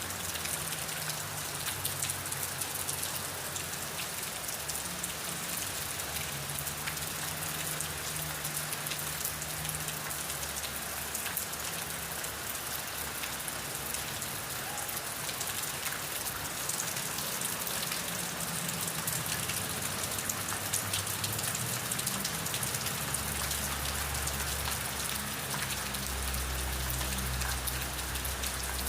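Steady rain falling on a surface: an even hiss dotted with many individual drop ticks. A low rumble comes and goes beneath it and grows stronger near the end.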